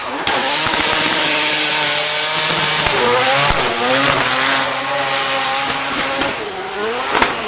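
Tuned car engine revving hard, its pitch rising and falling, with a couple of sharp exhaust pops midway and one loud crack near the end.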